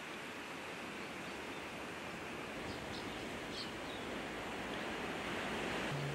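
Wind rushing through tall grass, a steady noise that grows slightly louder toward the end. A few faint, short, high chirps of small birds come about three seconds in.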